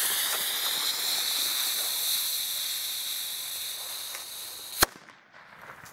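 Lit fuse of a Weco Super Böller 2 firecracker (a Class 2 banger) hissing steadily, then the banger going off with one sharp bang near the end, extremely loud.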